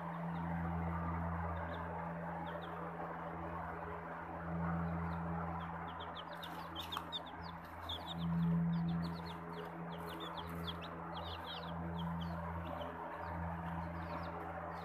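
Australorp chicks peeping, with a quick run of many short high peeps from about halfway through, over a steady low hum.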